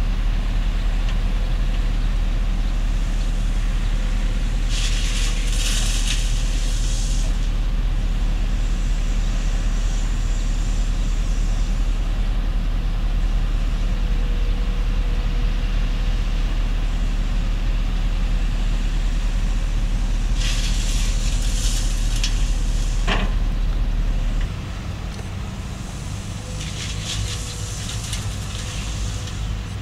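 Diesel engines of a crawler excavator and a Shacman dump truck running steadily, with three spells of gravel pouring from the excavator bucket into the truck's steel dump bed, each a hissing rattle lasting a couple of seconds. A single sharp knock follows the second pour, and a little later the engine sound becomes quieter and lower.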